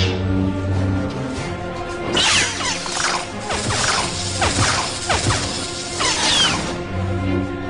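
Dramatic background music with low sustained notes, overlaid by lightsaber swish sound effects: falling swoops, a cluster of them between about two and five seconds in and another just after six seconds.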